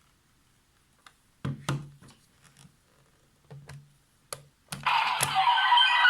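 Sharp plastic clicks and knocks as a Vistamp is handled and fitted into the DX Revice Driver toy, then about five seconds in the driver's electronic standby music and sound effects start playing loudly.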